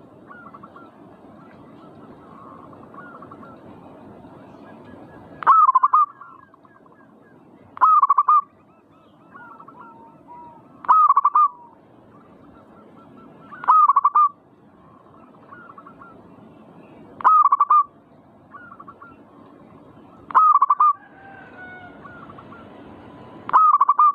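Zebra doves (perkutut) cooing: a loud, short coo phrase repeats about every three seconds, seven times in all, with softer coos in between.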